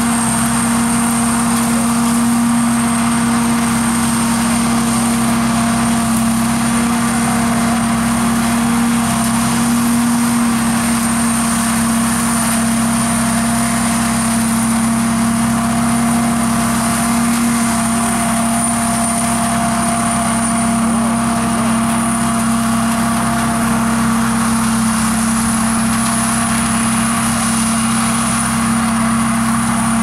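Sakpattana KM AMT corn combine harvester running steadily while harvesting: an unchanging machine drone with a thin high whine above it.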